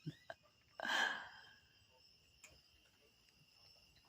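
A breathy exhale like a sigh about a second in, over insects trilling steadily in the background, with a couple of faint clicks near the start.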